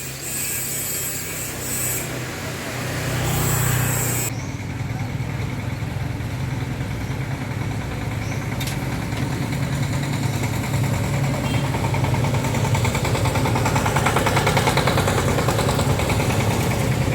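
A small engine running steadily, with a sudden change in the higher sounds about four seconds in.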